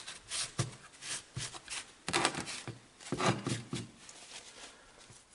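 Hands handling small engine parts: a run of short scrapes, rubs and light knocks, loudest about two and three seconds in.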